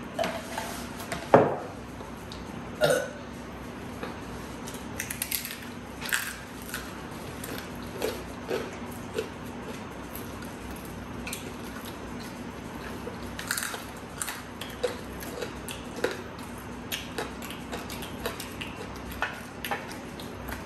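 Mukbang eating sounds: scattered crunches and chewing clicks as people bite and chew crispy fried pork and chicken by hand, over a steady low hum. One louder, deeper sound comes about a second and a half in.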